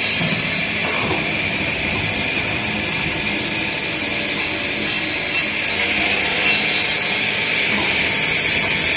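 Automatic pipe-cutting band saw machine running: a steady mechanical hum with a high, even whine over it.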